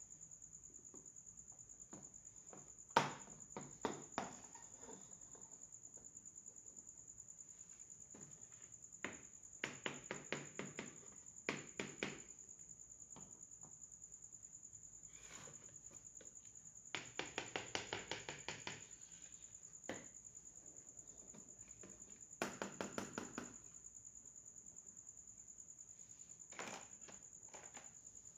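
Small plastic toy kitchen pieces being handled, in short bursts of rapid clicking and tapping with pauses between, over a steady high-pitched whine.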